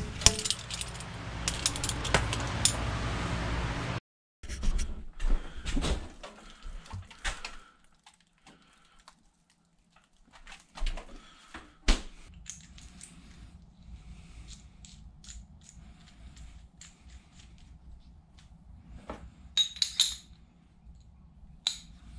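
Metal tools and axle parts being handled: a steady rushing noise cuts off abruptly about four seconds in, then scattered metallic clinks and knocks follow, the sharpest about twelve seconds in.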